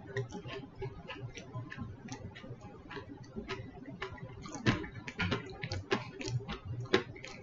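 Eating sounds: quick irregular clicks and crackles as a takeout fried-chicken meal is chewed and handled, thickest and loudest in the second half.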